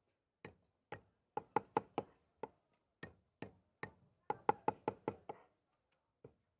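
Cleaver chopping on a wooden block, the way braised meat is chopped for roujiamo: sharp separate strikes, with two quick runs of four or five strikes in a row.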